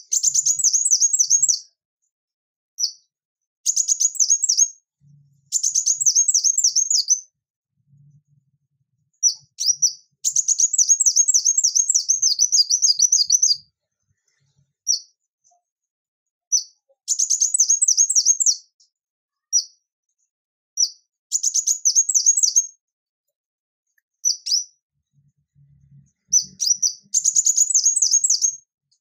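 Male ruby-cheeked sunbird singing: bursts of rapid, high, sharp notes in phrases from a fraction of a second to about three seconds long, repeated with short pauses between them.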